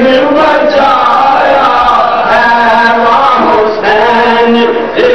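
A man's voice chanting melodic verses over a microphone, in several long held notes that glide between pitches, with short breaks.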